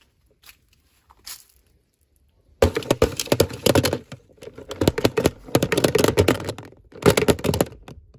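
Crinkly plastic packaging being handled and torn open by hand: a few soft clicks, then about five seconds of dense crackling and crinkling with a short pause near the end.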